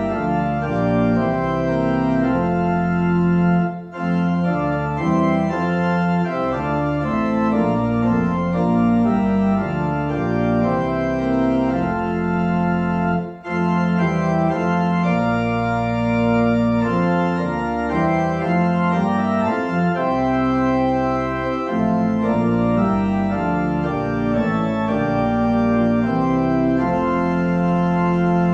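Church organ playing the postlude after the dismissal: sustained chords that change every second or so, with brief pauses between phrases about 4 and 13 seconds in.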